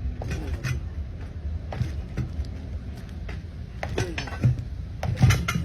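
Scattered metal clinks and knocks as a new tyre is worked onto a steel truck rim with hand tools, over a steady low background rumble.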